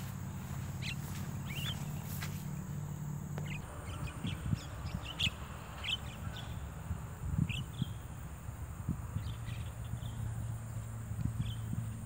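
Javan mynas giving short, scattered chirps and calls, over a steady low hum.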